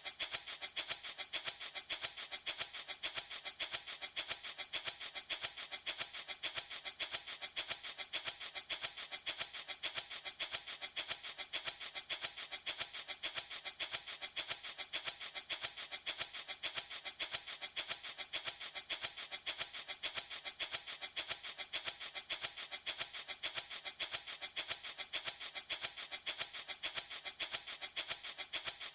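Handmade baby rattle shaken in a steady, even rhythm, a continuous bright rattling hiss like a small maraca.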